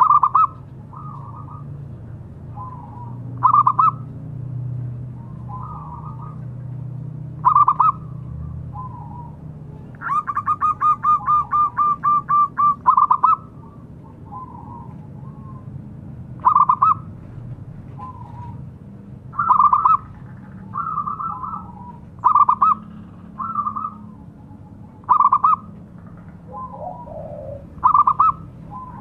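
Zebra dove (perkutut) cooing: short loud call phrases every few seconds, softer coos in between. About ten seconds in there is a rapid run of repeated notes lasting about three seconds.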